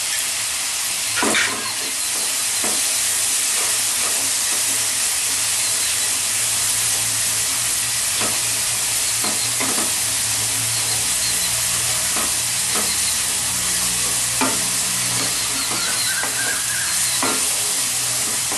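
Onion, garlic and ginger masala paste sizzling steadily in oil and ghee in a kadai, with a spatula scraping and knocking against the pan every second or two as it is stirred. The masala is being fried until well browned.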